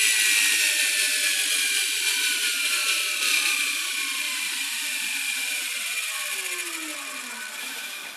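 Arçelik washing machine's brushed universal motor, with a freshly sanded commutator and new carbon brushes, spinning down on the bench: a high whine with brush chatter that falls steadily in pitch and fades as it slows.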